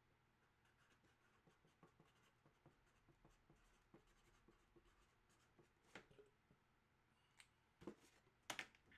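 Near silence with faint scratching and light taps, and a few sharper clicks near the end.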